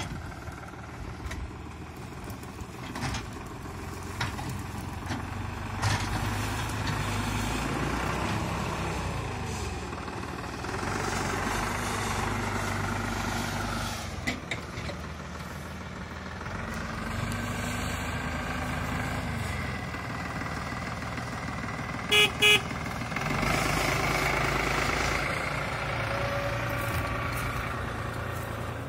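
Tractor diesel engine working under load as its front-loader bucket pushes through soil, the engine note rising and falling with scattered knocks and scrapes. About three-quarters of the way through, a horn gives two short toots.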